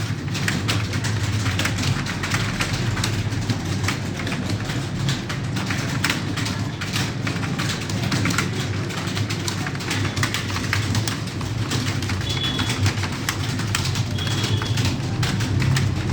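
Rapid typing on a computer keyboard: a dense, unbroken stream of key clicks over a low steady hum.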